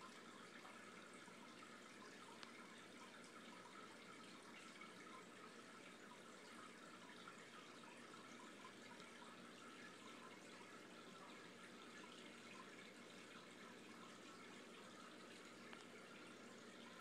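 Faint, steady trickling of aquarium water.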